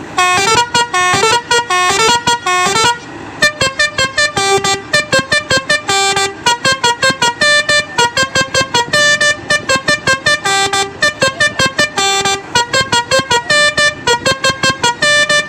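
Mitsubishi Fuso truck's basuri horn, a multi-tone musical air horn, playing a fast tune of short bright toots at shifting pitches, with a short break about three seconds in.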